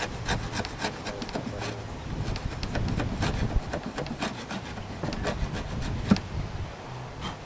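Metal hive tool scraping sticky propolis off the top rim of a wooden beehive box in quick, uneven strokes, with one sharper knock about six seconds in.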